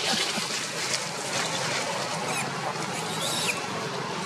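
Steady outdoor hiss with two brief high chirps, the second falling in pitch about three and a half seconds in.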